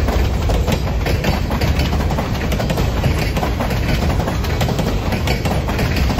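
Freight train boxcars rolling past: steel wheels giving a steady low rumble with frequent clicks and clacks over the rail.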